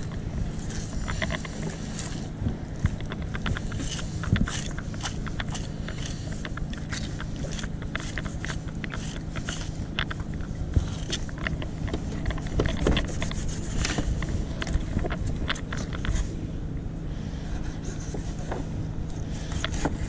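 A fillet knife cutting and scraping through a blackfish (tautog) on a fillet board: a steady run of small clicks, crunches and scrapes, over a steady low hum.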